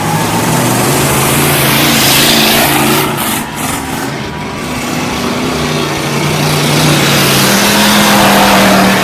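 Several race cars' engines running on a dirt oval, revving as they go past, with one car passing close about two seconds in and another swelling up near the end.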